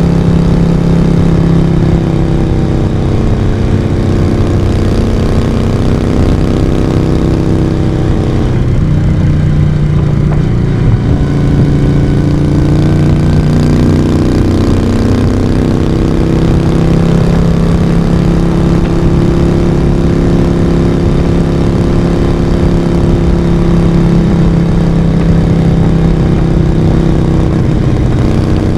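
Moto Guzzi V35's air-cooled 90° V-twin engine and exhaust running under way on the open road. The note drops briefly about a third of the way in as the throttle eases, with a short knock, then rises and settles back to a steady pull.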